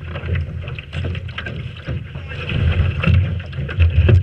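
Strong wind buffeting the microphone, with water rushing and splashing along the hull of a small sailboat under way in a big breeze. The rushing grows louder about two and a half seconds in.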